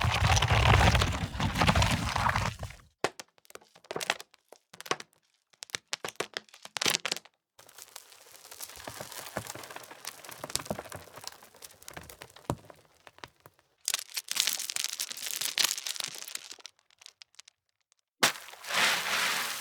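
A run of stone sound effects. First comes a loud rumble of heavy stone rolling or sliding, lasting about three seconds. Then come scattered sharp knocks of stones dropping and bouncing, and then longer spells of dense rattling and cracking, like rocks and gravel scraping and tumbling against each other.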